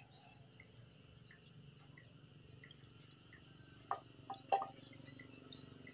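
Three sharp metallic clinks about two-thirds of the way through, from metal motorcycle parts being handled and set down by the opened clutch. Faint short chirps repeat about every 0.7 s in the background.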